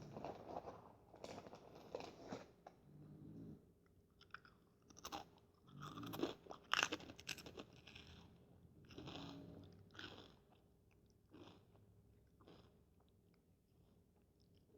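Close-up chewing of Fritos corn chips: clusters of crisp crunches with short pauses between mouthfuls, growing softer and sparser over the last few seconds.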